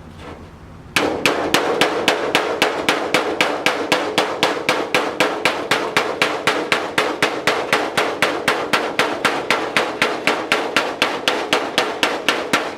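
Hammer striking sheet metal in a quick, even run of blows, about four to five a second, each with a short metallic ring. It starts about a second in and keeps an unbroken rhythm until it stops near the end.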